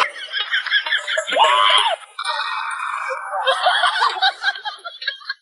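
Human voice sounds without clear words: a cry about a second and a half in, then laughing.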